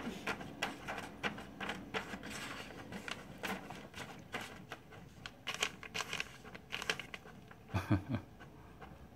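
Irregular rustling and crinkling of paper as cats paw at and pull printed sheets from an inkjet printer's output tray, with a brief low vocal sound near the end.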